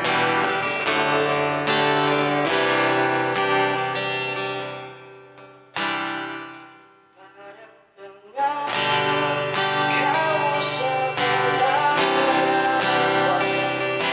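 SQOE Cranberries 41 acoustic-electric guitar played through its pickup, mixing strummed chords and picked notes. The playing fades to near silence about six to eight seconds in, then comes back fuller about eight and a half seconds in.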